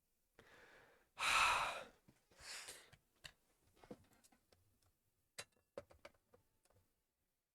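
A person's heavy sigh close to the microphone, followed by a second, weaker breath. Then a series of scattered light clicks and knocks, like equipment being handled.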